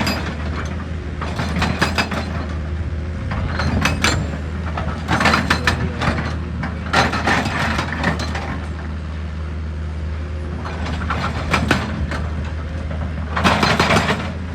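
Heavy machinery engine running with a steady low hum, broken every few seconds by bursts of clattering and cracking, as of rock and metal being worked.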